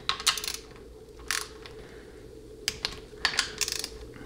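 Torque wrench tightening valve body bolts on a 700R4/4L60 transmission to 98 inch-pounds: four short runs of sharp ratchet clicks, spread across the few seconds.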